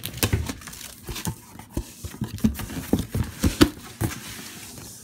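Cardboard box being opened by hand: irregular scraping, knocking and rustling of the cardboard and its flaps, easing off near the end.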